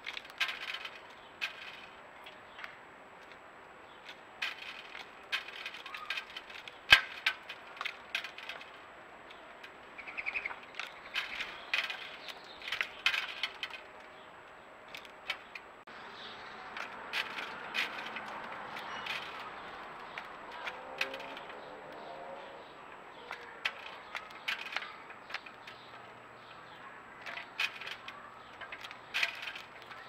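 House sparrows and a house finch pecking seed from a feeder tray: irregular sharp clicks and taps of beaks on the tray, with a few short chirps. A soft rushing noise rises past halfway and lasts several seconds.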